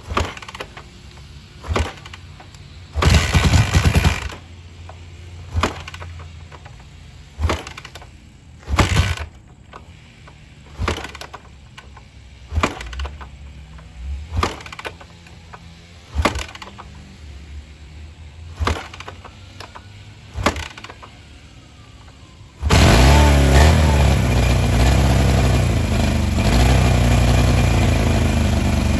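Kawasaki KZ400 parallel-twin motorcycle being kick-started again and again with a capacitor in place of its battery. About a dozen short bursts come a second or two apart as the engine is kicked over without catching, with a longer one about three seconds in. Near the end it fires and runs loudly.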